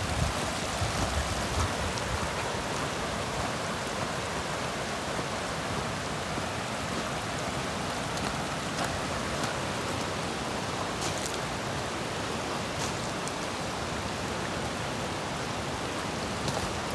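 Heavy hurricane rain falling in a steady, even hiss, with a few faint ticks of drops striking nearby.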